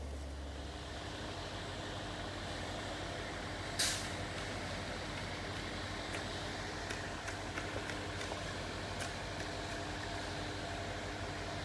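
Truck-mounted concrete boom pump running steadily, its engine making a constant drone, with a short sharp hiss of air about four seconds in and a few faint clicks after.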